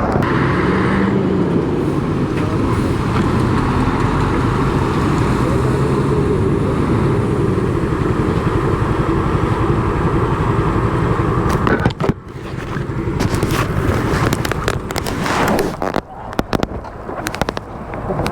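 Motor scooter riding along a road: steady engine and road noise under wind rush on the microphone. About two-thirds of the way through it turns choppy and gusty, with brief dropouts.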